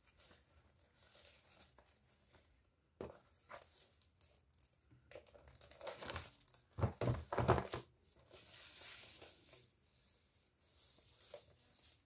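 Gift-wrapping paper rustling and crinkling in irregular bursts as a wrapped box is handled and its ribbon untied, with a louder cluster of crinkles and knocks on the table about seven seconds in.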